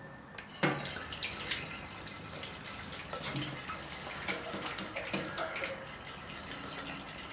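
Used engine oil pouring from a plastic jerrycan into a galvanised metal tank: a knock about half a second in, then an irregular run of glugs and splashes as the stream falls.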